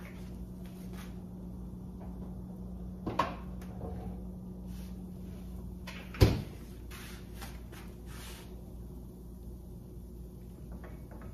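Kitchen handling sounds: scattered light clicks and two sharp knocks, the louder one about six seconds in, like a cabinet or appliance door shutting. A steady low hum stops at that second knock.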